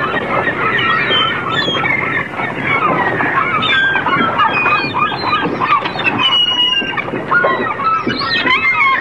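Seagulls calling: a continuous jumble of short, overlapping cries from several birds.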